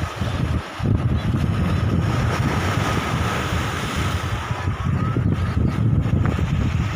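Sea waves breaking and washing over a rock breakwater, with strong wind buffeting the microphone.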